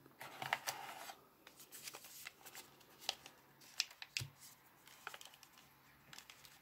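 Faint handling noise: a coiled USB-C charging cable lifted from a cardboard phone box and turned in the fingers, with scattered soft rustles and small clicks.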